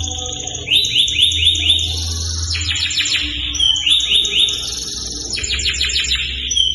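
Domestic canary singing hard in a long song of rolling tours. Each phrase is a run of rapidly repeated notes, lasting about a second, switching between rising sweeps and faster, higher trills. A steady low hum lies under it.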